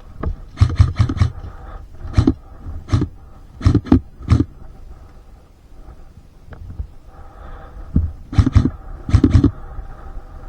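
A series of heavy knocks and thumps close to the microphone: a quick cluster of four, then four single knocks spaced about evenly, then two more quick clusters near the end. A faint steady hum runs underneath.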